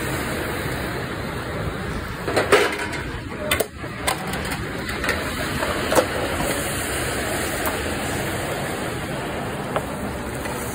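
Busy restaurant kitchen: a steady rushing din of cooking and ventilation, with a few sharp clatters of cookware a few seconds apart.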